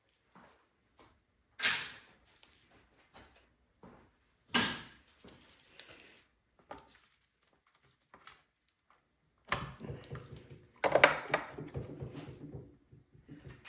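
Sharp knocks and clatter of hand tools and parts being handled while taking a generator apart: two single knocks, then a longer run of clattering and rattling about ten seconds in.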